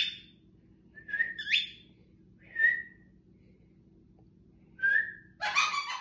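Four short whistled notes aimed at a pet cockatiel, two of them sweeping sharply upward in pitch, with pauses between. A brief, louder, rough-sounding burst follows near the end.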